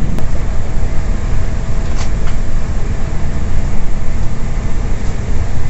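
Cabin noise of a GWR diesel multiple-unit train running at speed: a steady low rumble of wheels on the track and the underfloor engine, with a few brief clicks about two seconds in.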